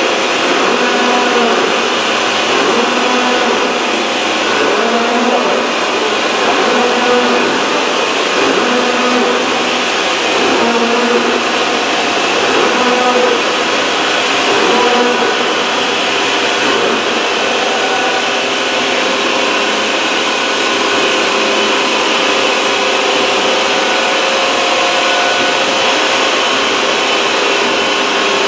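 Large gantry machine tool's cutting head machining the surface of a big steel workpiece, with coolant mist spraying: a loud, steady cutting noise with a hum through it that wavers in pitch in the first half and holds steadier later.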